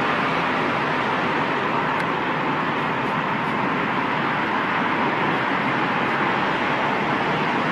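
Steady city traffic noise: cars on a busy avenue and elevated highway making a continuous even rumble and hiss.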